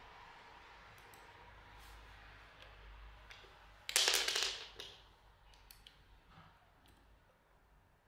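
Small plastic and metal parts of a Shimano ST-EF41 bicycle shifter being handled and fitted together, with scattered faint clicks. About four seconds in, one much louder scraping sound that lasts under a second.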